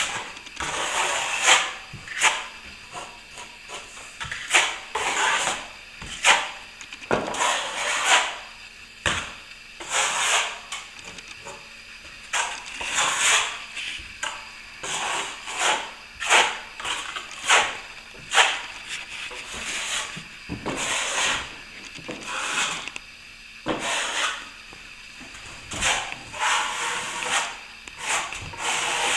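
Repeated scraping strokes of a plasterer's hand tool worked across plasterboard, coming irregularly about one every second or two, as the taped crack is floated over with plaster.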